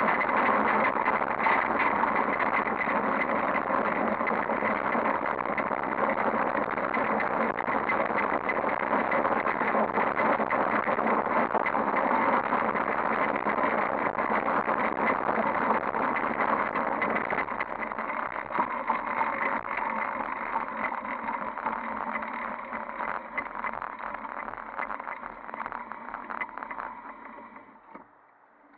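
Bicycle rolling over rough asphalt, heard through a handlebar-mounted camera as dense rattling road noise with some wind. It gets quieter from about two-thirds in and fades away near the end as the bike slows.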